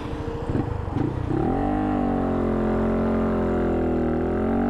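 Honda Monkey's 125 cc single-cylinder engine, fitted with an aftermarket cam, idling with an uneven putter. About a second and a half in it pulls away from a stop, its note rising quickly and then holding steady as the bike accelerates.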